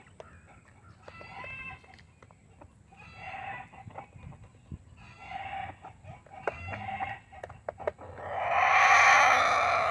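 Chickens calling in chorus: short pitched calls every second or two, building to one long, loud call about eight seconds in.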